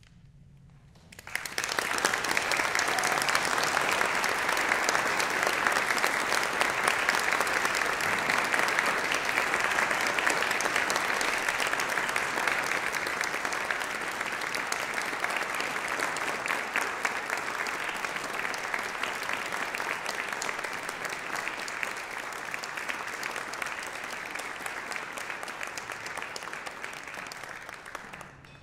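Audience applauding, starting about a second in and easing off slightly near the end.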